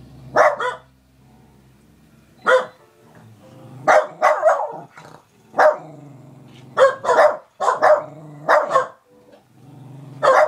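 Small dog barking at a fly it is chasing: about a dozen short, sharp barks in irregular bursts, with low growling between them.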